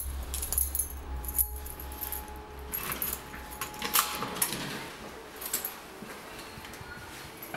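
A bunch of keys jangling and clicking against a door lock as a key is fitted into the deadbolt and turned, with sharp metallic clicks and jingles throughout, the strongest about four seconds in.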